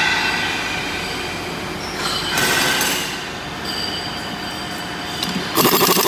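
Steady factory machinery noise with high squealing tones. About five and a half seconds in, a handheld power driver rattles loudly for about a second as it tightens a fastener while assembling a red cast valve.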